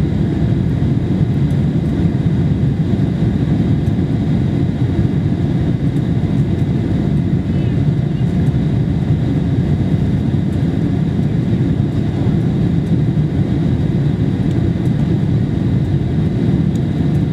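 Steady cabin roar of a Boeing 747-400 climbing after takeoff, engine and airflow noise heard from a seat behind the wing. A faint, steady high whine sits above the low roar.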